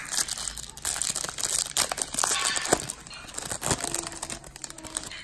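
Foil baseball card pack wrapper crinkling and crackling as it is handled, a dense irregular run of crackles.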